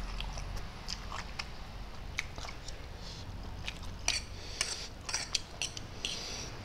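A man chewing and slurping instant noodles with wet mouth clicks and smacks, and a fork scraping and tapping on the plate. A cluster of sharper smacks comes about four to five seconds in.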